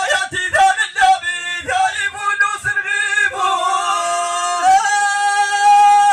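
A man's solo voice chanting Amazigh verse unaccompanied, amplified through a microphone. It moves in short bending phrases, then holds one long note from about halfway, stepping up slightly near the end.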